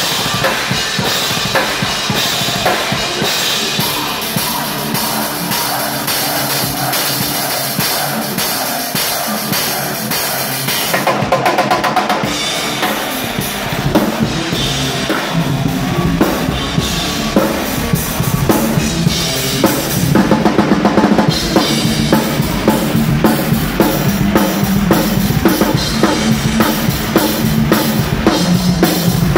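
Live thrash metal drumming on a Tama Starclassic Maple kit with a steel snare and Meinl cymbals, heard close to the kit as dense, fast snare, kick and cymbal hits with the full band playing underneath. The playing gets louder and denser about halfway through.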